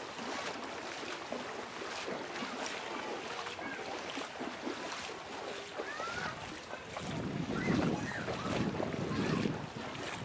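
Water from the overflowing Citarum River rushing and splashing, with wind buffeting the microphone. About seven seconds in, a louder low rumble of wind or water swells up.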